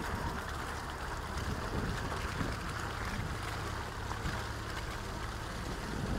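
A vehicle driving along a rutted dirt road: a steady low engine rumble with tyre and road noise.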